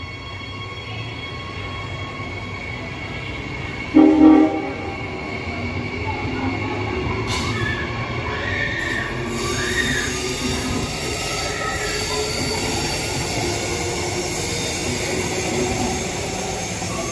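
Queensland Rail electric passenger train running past with a steady rumble. A short train horn blast about four seconds in is the loudest sound, and a high whine slowly falls in pitch through the second half.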